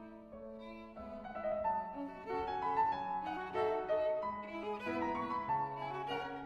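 Instrumental background music of violin and piano, a melody of held notes.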